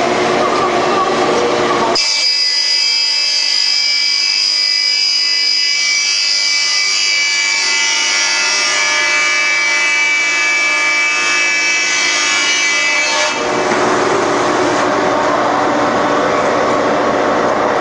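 Industrial wide belt sander running as a large panel feeds through it. About two seconds in, the sound turns into a high whine made of several steady tones. That whine cuts off suddenly near thirteen seconds, and the broader machine noise returns.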